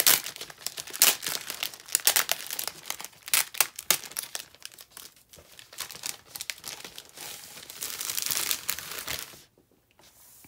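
Clear plastic wrapping crinkling and crackling in irregular bursts as hands pull a large spiral-bound wall calendar out of it, with a longer continuous rustle near the end.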